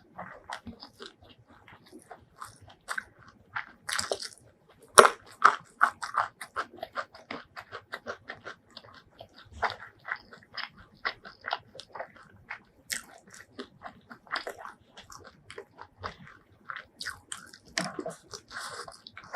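Close-miked eating of crispy fried chicken: irregular crunching bites and wet chewing, with the loudest crunch about five seconds in.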